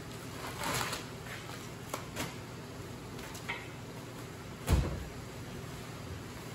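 Plastic wrapping rustling as a wrapped item is lifted out of a wooden crate, with a few light clicks, then a single dull thump about two-thirds of the way through as it is set down on a tool chest's wooden top.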